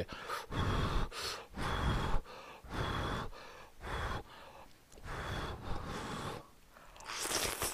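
Ramen noodles being slurped off chopsticks in a run of short sucking draws, roughly one a second.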